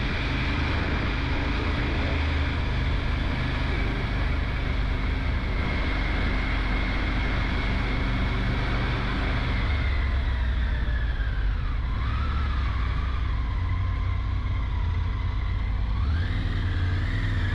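Motorcycle engine running on the move, with a steady low rumble. Its pitch dips and climbs back about ten seconds in and again near the end.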